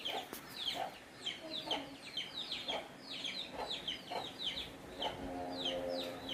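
Chickens clucking, with a quick run of short, high, falling peeps several times a second.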